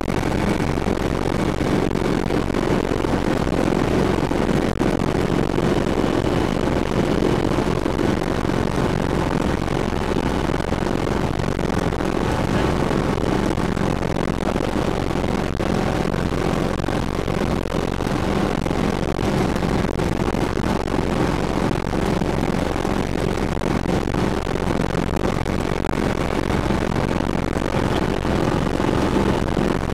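Sikorsky S-300CBi piston-engined light helicopter in steady cruise flight, heard from inside the cabin: an unbroken drone of engine and rotors under a rush of noise.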